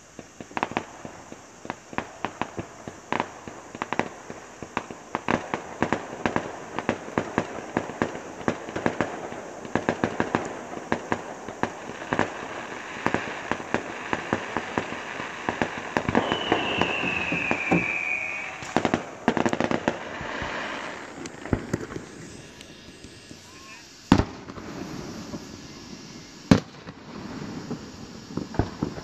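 Fireworks going off: a fast, dense run of crackling pops and bangs that thins out after about twenty seconds, then a few single loud bangs near the end. A short falling whistle comes about halfway through.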